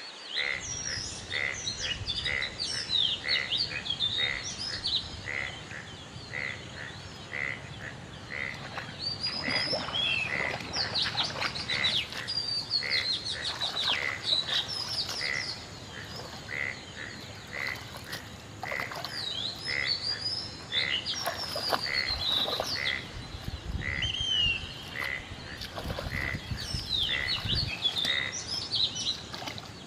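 Frogs and birds calling around a flooded paddy field: a short call repeats about twice a second, with birds chirping and whistling over it.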